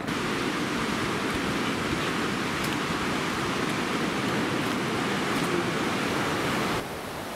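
Steady rush of a fast mountain river flowing over rocks, heard from a suspension bridge above it; it stops abruptly near the end.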